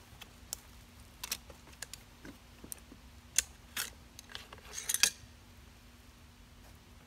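Metallic clicks and clinks of a 6.5 Creedmoor AR-style rifle being broken open: the upper receiver is pivoted off the lower and the bolt carrier group is slid out of the upper. It comes as a string of short, separate clicks, with the loudest a little past halfway and a quick cluster about five seconds in.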